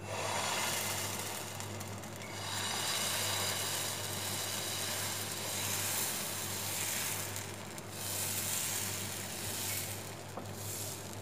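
Dosa batter sizzling on a hot nonstick dosa pan as it is poured on and spread outward in a spiral with a ladle. The hiss starts suddenly as the batter lands and then swells and eases in waves as fresh batter meets the hot surface.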